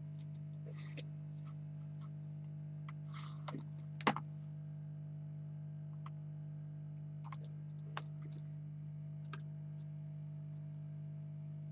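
Scattered light clicks and taps at an uneven pace, with one louder knock about four seconds in, over a steady low hum.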